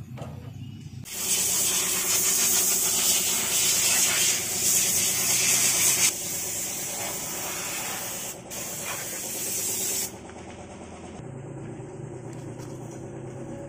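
A loud, steady hiss, strongest in the treble, starting about a second in, breaking briefly near six seconds, and dropping away near ten seconds. A steady low hum runs beneath it throughout.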